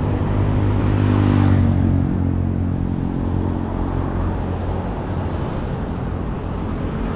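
Road traffic: a motor vehicle's engine hum passes close by, loudest about a second and a half in and then easing off, with a steady low engine drone underneath.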